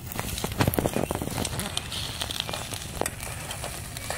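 Food frying in a nonstick pan on a portable gas stove, sizzling with frequent sharp crackles and pops as a spoon stirs it.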